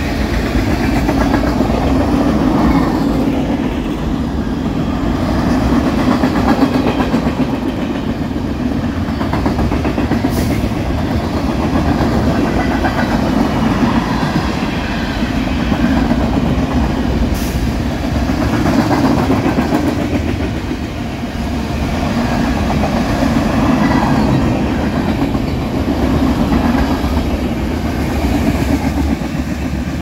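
Union Pacific freight train's tank cars and boxcars rolling past, steel wheels clattering over the rail joints in a steady rumble that swells and eases every few seconds. Two brief, sharp high ticks cut through, about a third of the way in and again past the middle.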